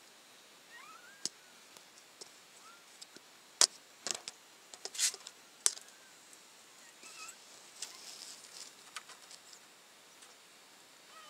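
Newborn puppies giving faint, short rising-and-falling squeaks, with sharp clicks and rustling from handling that are loudest between about four and six seconds in.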